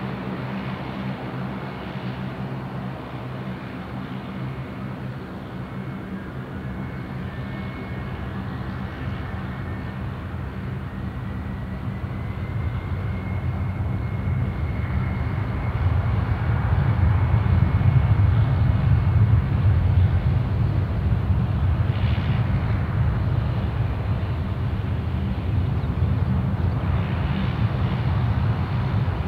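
Fokker 100's two rear-mounted Rolls-Royce Tay turbofans spooling up for takeoff. A thin whine climbs in pitch and then holds, while the engine noise grows louder about halfway through and stays up at takeoff power as the jet rolls away.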